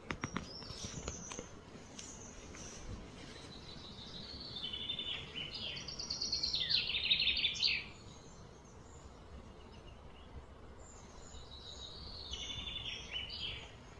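A songbird singing in quick, rapidly repeated high notes, loudest from about four to eight seconds in and coming back near the end, over a steady outdoor background. A few light clicks just at the start.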